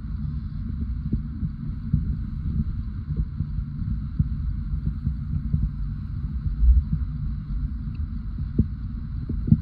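Sea sound recorded underwater: a steady low rumble and wash of moving water, with scattered soft knocks and a swell in loudness near the middle.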